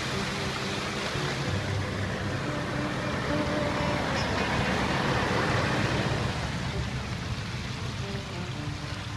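Road vehicle noise that swells to its loudest about five to six seconds in and then fades, over soft background music.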